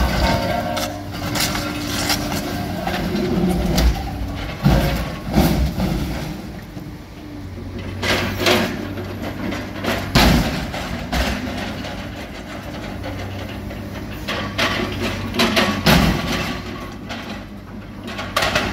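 Diesel engine of a scrap-yard material handler running steadily while its orange-peel grapple tears into an armored truck's steel body, with repeated loud metal crunches and bangs coming in clusters.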